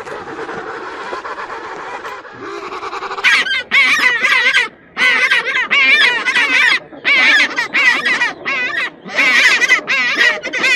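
Penguins calling: a lower, continuous calling at first, then from about three seconds in a series of loud, harsh, wavering calls broken by short pauses.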